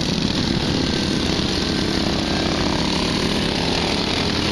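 Racing lawn mower engines running steadily.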